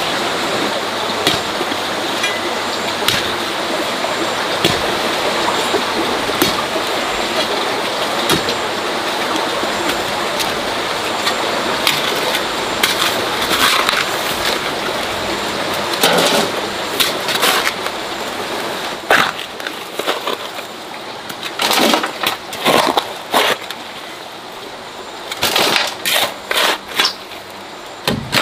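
Continuous gritty scraping and rustling full of small clicks, breaking up in the last third into separate scrapes and knocks with short pauses between them.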